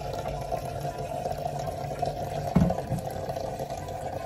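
Kitchen tap running into a stainless-steel sink, the water splashing as vegetables are rinsed in a plastic bowl, with a brief knock a little past halfway.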